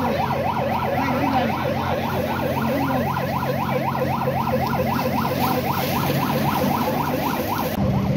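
Emergency-vehicle siren sounding a fast yelp: a rising sweep repeated about four times a second.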